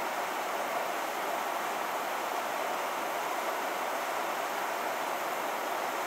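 Gas furnace running with a steady rush of air and no burner flame: the burners have been shut off by a safety trip, which the owner puts down to a failing control valve.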